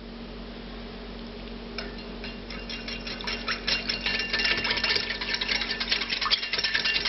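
Wire balloon whisk beating egg yolk and milk in a ceramic bowl: a rapid, continuous clicking of the metal wires against the bowl, starting about two seconds in and getting louder, with a faint bell-like ringing.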